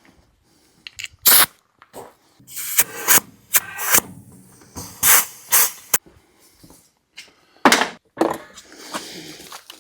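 A series of irregular sharp knocks and scrapes, about a dozen over several seconds, the loudest a little over a second in and just under eight seconds in.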